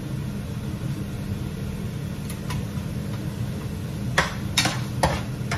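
Steady low hum of a kitchen fan, with a couple of faint clicks and then four sharp knocks, about half a second apart near the end, of a utensil striking cookware.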